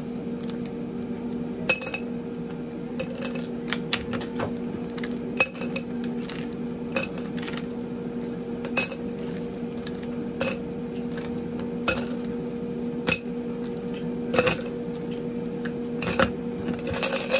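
Irregular clinks and clatter of glassware and bar utensils being handled while a cocktail is set up, about a dozen separate knocks, over a steady low electrical hum.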